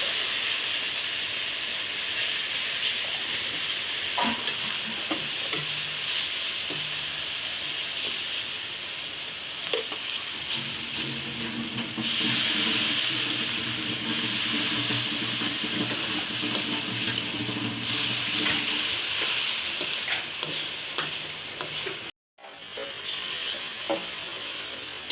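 Banana flower sizzling as it fries in a pan, with a steady hiss and occasional taps and scrapes of a spoon or spatula stirring it. The sound cuts out briefly near the end.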